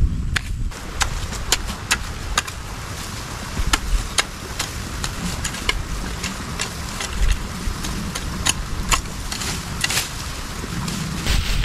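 Low wind rumble on the microphone, with scattered sharp clicks from a hoe chopping weeds and stalks in dry soil.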